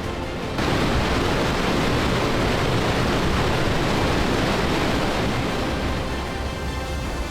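Banjo Falls waterfall rushing: a loud, steady roar of falling water that cuts in suddenly about half a second in and eases off near the end, with faint music coming in.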